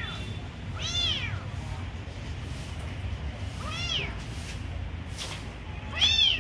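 Kittens meowing: three short, high-pitched meows about two to three seconds apart, each rising and then falling in pitch.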